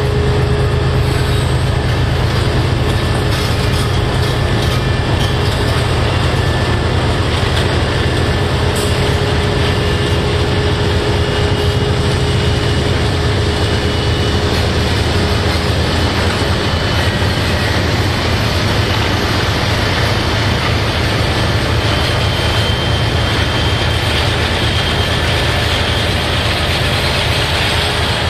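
A BNSF freight train passing at close range. The trailing diesel locomotive's engine fades as it moves on in the first seconds, then the rock train's open aggregate cars roll by with steady wheel-on-rail noise. A faint, thin wheel squeal comes in now and then in the second half.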